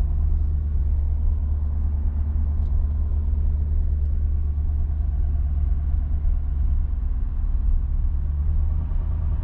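Truck engine running steadily at low speed while hauling a loaded trailer: a constant low rumble.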